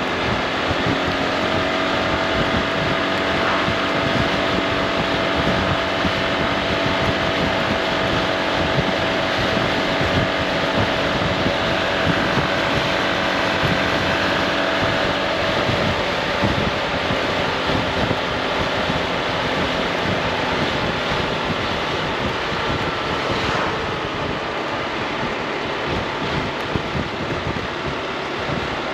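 Wind rushing over the rider's microphone on a moving Honda ADV 350 scooter, with the steady drone of its single-cylinder engine underneath. The engine tone fades into the wind noise about halfway through.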